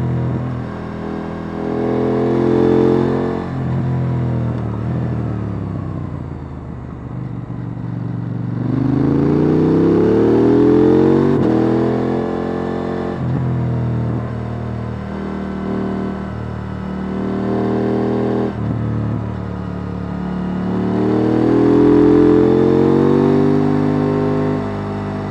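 KTM 890 Duke R's parallel-twin engine on its stock exhaust, heard on board, with the revs falling away as the bike slows, then rising in hard sweeps about nine and twenty-one seconds in as it accelerates.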